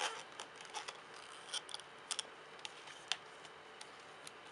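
Resin ball-jointed doll's limbs being handled and turned by hand: a scatter of small, sharp, irregular clicks and taps as the hard resin parts knock and shift in their joints.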